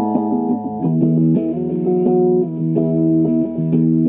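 Music: electric guitar chords ringing over held, sustained notes, the harmony changing about a second in and again midway.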